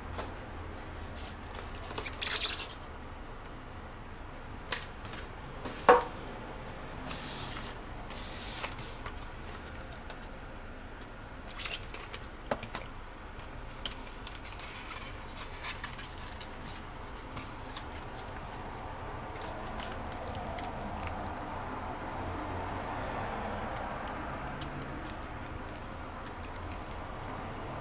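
Unpacking a diecast model from its styrofoam packaging: foam and plastic wrapping rustle and creak in short bursts, with a few sharp clicks and knocks as pieces are handled and set down on the wooden tabletop, the loudest knock about six seconds in.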